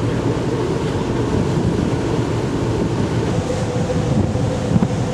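Wind buffeting the microphone over the steady drone of a ferry under way, with a faint steady hum running through it.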